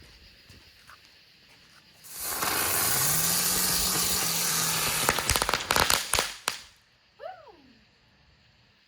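A small ground-spinning novelty firework lit and going off. About two seconds in it starts with a loud hiss and a low hum that rises in pitch as it spins up and then holds steady. After about three seconds it ends in a quick string of crackling pops.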